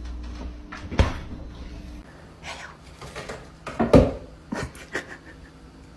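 A few sharp knocks and thumps, like a cupboard door or objects bumping. The loudest come about a second in and just before four seconds in, with lighter knocks after.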